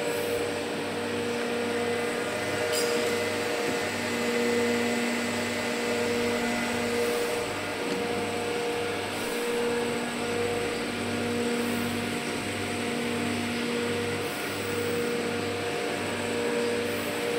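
Steady hum of running industrial machinery, with several steady tones that fade in and out over a low, evenly pulsing throb.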